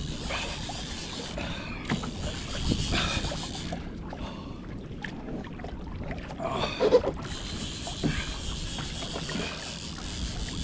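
Water sloshing and splashing around a fishing kayak, with scattered knocks and a short pitched sound about seven seconds in.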